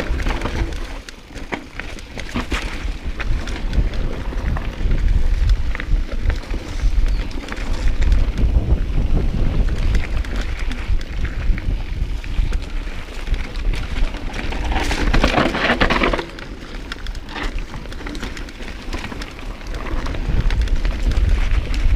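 Mountain bike riding fast down a dry dirt and stone singletrack: tyres crunching over the ground and the bike rattling, over a constant low rumble of wind and vibration on the action camera's microphone. The rattling is loudest for a second or two about two-thirds of the way through.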